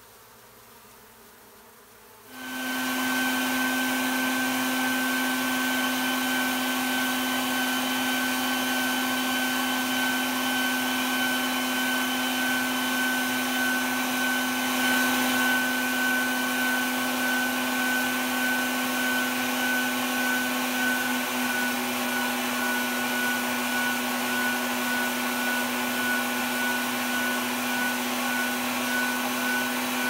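Bee vacuum switched on about two seconds in and running steadily at a constant pitch, vacuuming live honey bees off a piece of comb.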